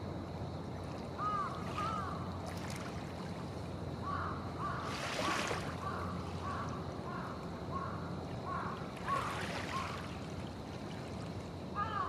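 Gentle harbour waves lapping against the shore, with a couple of splashes about five and nine seconds in, over a steady low rumble. A bird calls repeatedly in short arched notes, most busily through the middle.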